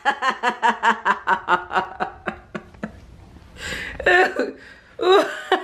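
A person laughing: a run of quick, short snickering laughs, about six a second, for roughly three seconds. Two louder bursts of laughter follow near the end.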